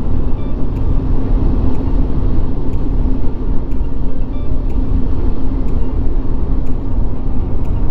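Motorcycle engine running at a steady cruise, mixed with heavy wind noise on the microphone.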